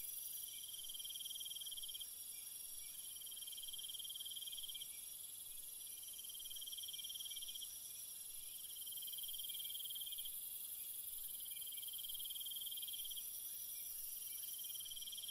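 Insects chirping: a cricket-like pulsed trill repeats about every two and a half seconds, each lasting around a second and a half, over a steady high-pitched buzz of other insects.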